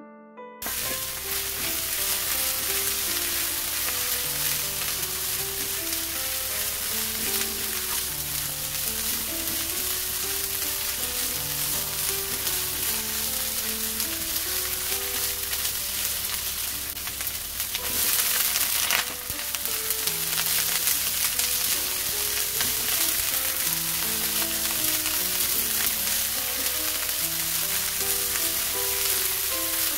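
Tofu and ground pork frying in a pan, a steady sizzle that cuts in suddenly right at the start and swells briefly about eighteen seconds in, as a spatula stirs the pieces. Soft piano music plays over it.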